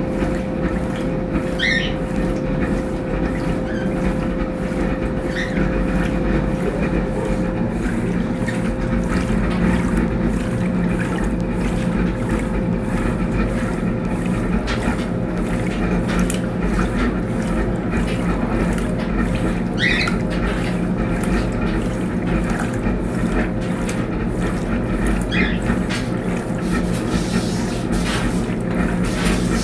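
Brastemp Tira Manchas Pro 12 kg washing machine running a load of blankets: a steady motor and drum hum, with a few brief squeaks.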